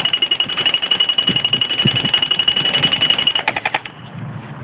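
G608 airsoft electric rifle (G36 replica) firing one long full-auto burst. Its motor and gearbox make a rapid buzzing rattle that stops about three and a half seconds in, followed by a few sharp clicks.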